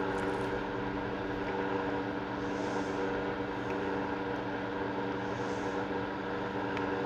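A steady machine hum with several fixed tones, under a soft hiss that comes back about every three seconds.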